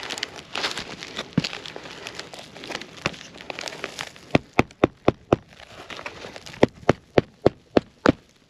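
Asphalt shingles being chipped loose from their seal strips with a pry bar. First the shingle crackles and tears. Then, about four seconds in, come two runs of quick, sharp taps, about four a second.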